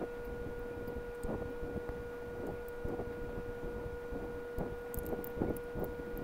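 Screwdriver turning the screws of a small plastic device enclosure: faint irregular scrapes and clicks. They play over a steady tone that sounds like an electrical whine.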